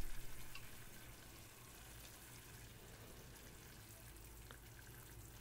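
Faint, steady simmering and sizzling of sliced beef and onions cooking in a shallow pan of soy-based broth. It is a little louder in the first second, then settles to an even low hiss.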